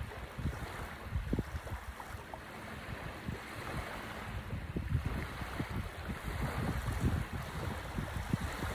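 Small waves washing onto a sandy shore, with wind gusting irregularly on the microphone.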